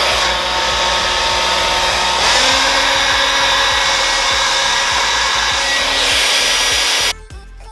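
Handheld blow dryer running on high airflow: a loud, steady rush of air with a faint whine. It cuts off abruptly near the end, leaving background music.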